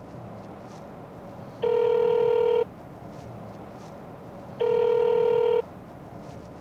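Telephone ringback tone of an outgoing call, two steady one-second rings about three seconds apart, the call still waiting to be answered. Between the rings a low steady car-cabin hum.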